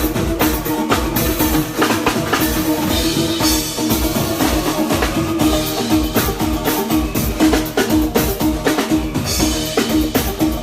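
Live band playing, with the drum kit out front: steady kick and snare hits over held bass and instrument notes.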